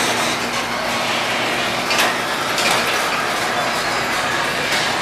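Chamberlain LiftMaster garage door opener running as the sectional garage door rolls down its tracks to close: a steady mechanical rattle with a few sharp clicks along the way.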